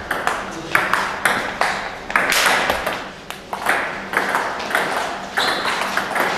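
Table tennis balls knocking off bats and the table in rallies, a run of sharp clicks roughly every half second at an uneven pace, with more rallies at neighbouring tables mixed in.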